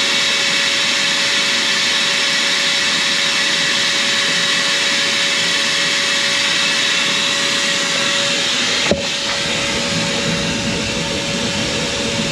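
Vacuum cleaner running steadily with its hose down in a boat's diesel fuel tank, sucking up fuel and lumps of debris: a loud rushing of air with a steady tone over it. A brief knock about nine seconds in, after which it runs a little quieter.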